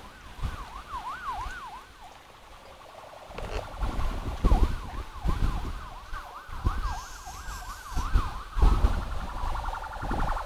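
A vehicle siren yelping in quick rising and falling sweeps. It breaks off for a couple of seconds and starts again, and a long falling tone follows near the end. Low gusts of wind rumble on the microphone.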